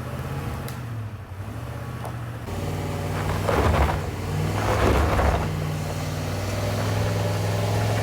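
Vehicle running with a steady low hum, with louder rushes of noise around the middle and near the end.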